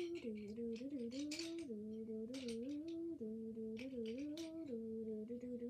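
A girl humming a wordless tune in held notes that step up and down, over light clicks and clatter of pencils and small school supplies being handled.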